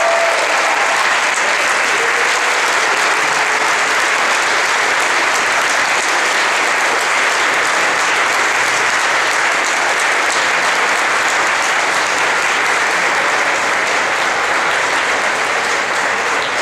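A large audience applauding steadily, many hands clapping at once in a dense, unbroken patter.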